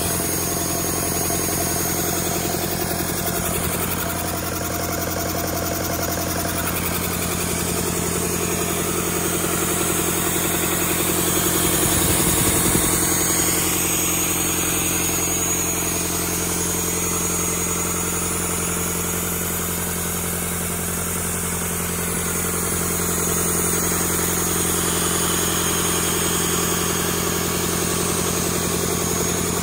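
Rebuilt Doosan D34P four-cylinder diesel engine running steadily on a test run after its rebuild, a little louder for a moment about twelve seconds in.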